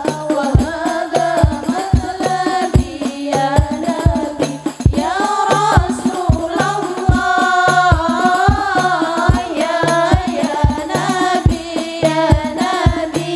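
Hadroh music: several women's voices singing a sholawat melody together into microphones, over Islamic frame drums (rebana) and a deep bass drum keeping a steady beat.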